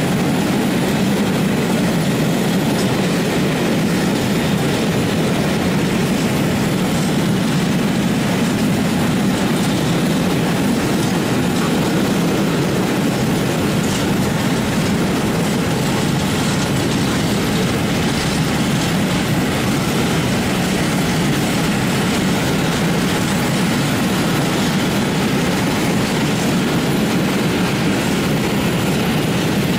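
Freight train of open-top gondola wagons rolling past: a steady, even rumble of steel wheels on the rails.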